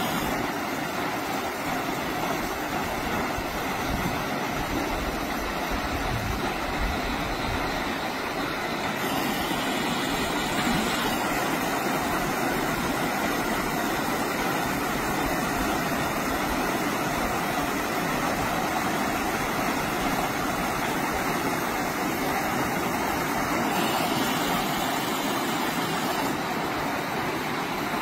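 Small creek cascading down a rocky waterfall: a steady rush of water.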